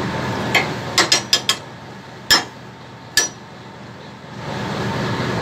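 Sharp metallic clicks and knocks on a boat deck: a quick run of five, then two single ones about a second apart. A steady low machinery hum runs underneath and drops quieter partway through.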